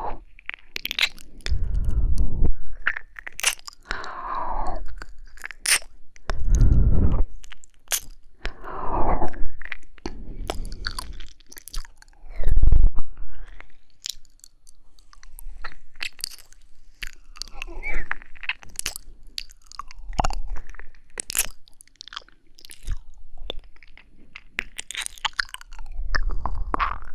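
Close-miked ASMR mouth sounds: wet licking and kissing, many sharp little clicks, with slow breaths swelling in between at the microphone.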